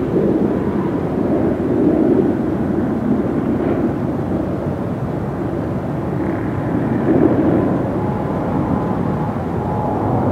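Boeing 787-8 Dreamliner's Rolls-Royce Trent 1000 turbofan engines at take-off thrust as the airliner lifts off and climbs: a steady jet rumble with a faint thin whine above it.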